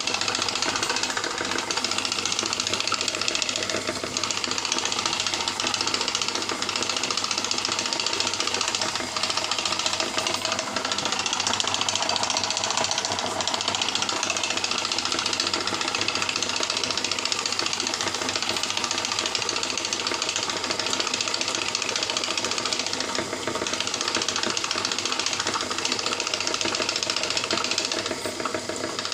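Homemade belt-type cotton wick machine running steadily: a small electric motor driving its wooden rollers and rubber conveyor belt.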